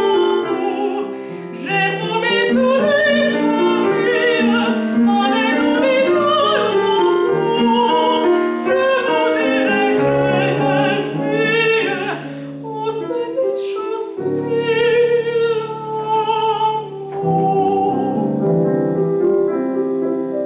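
A female classical singer sings with vibrato in operatic style, accompanied by a grand piano.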